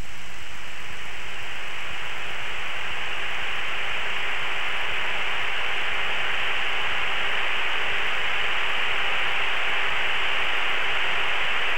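Steady, even hiss of a T-45 jet trainer's cockpit radio and intercom audio between transmissions, with a faint steady hum underneath.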